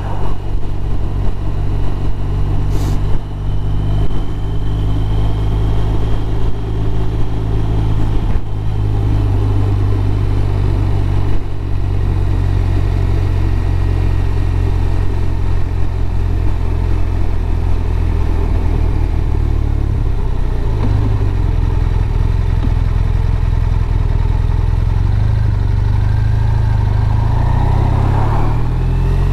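BMW R1200RT's boxer twin engine running at a steady, low road speed, with wind and road noise, heard from a camera on the bike's dash. The engine note rises in pitch near the end.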